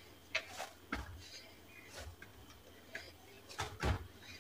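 Soft, irregular taps and thuds of a ball of stiff dough being pressed and kneaded by hand in a plate, the loudest a little before the end. The rested dough is being worked smooth.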